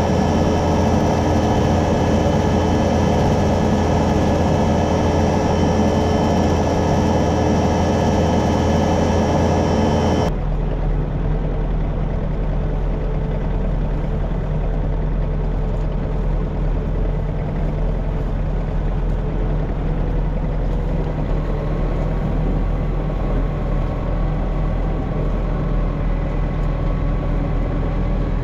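Kubota SVL65 compact track loader's diesel engine and hydraulic brush cutter running steadily at work. About ten seconds in, the sound changes abruptly to a lower, steadier engine drone.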